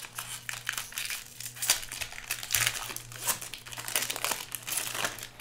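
Trading card pack wrapper crinkling and crumpling as it is torn open and handled, a dense run of crackles that stops at the end.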